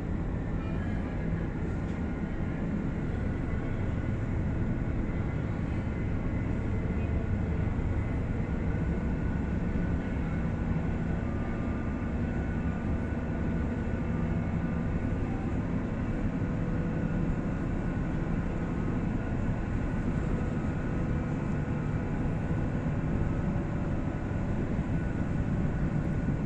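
Ferry's engines running with a steady low drone, several faint steady tones over the rumble, as the ship gets under way.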